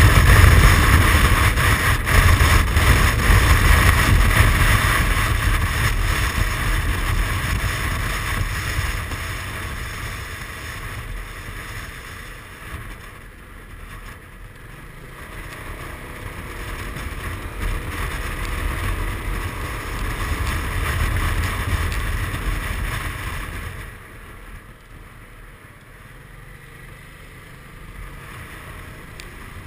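Wind rush and running noise from a 2007 Suzuki Burgman 400 maxi-scooter being ridden. It is loud at first, dies down around a third of the way in as the scooter slows, builds again as it picks up speed, then drops off sharply a little past three-quarters of the way in.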